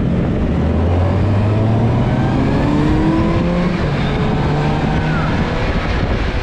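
Kawasaki Versys 1000's inline-four engine, heard from the rider's seat, rising in pitch as the bike accelerates away, with a dip about three and a half seconds in as it changes gear, then climbing again; wind rushes on the microphone underneath.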